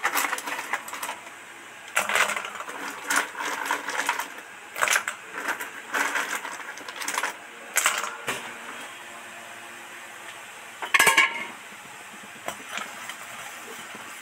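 Batasa, hard sugar drops, being tipped by the handful into a little hot water in a steel wok, clicking and tapping against the metal in repeated bursts. A single louder clatter comes about eleven seconds in.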